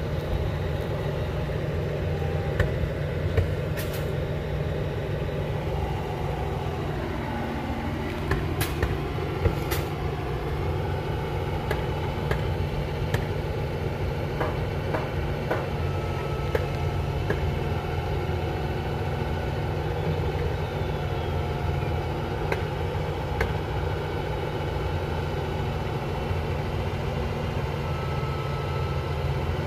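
Mobile crane's diesel engine running steadily at idle, with scattered sharp knocks and clicks and a tone that dips and comes back up about seven seconds in.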